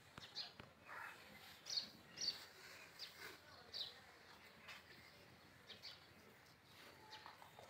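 Faint birds chirping, a handful of short high chirps scattered mostly through the first four seconds over low outdoor background noise.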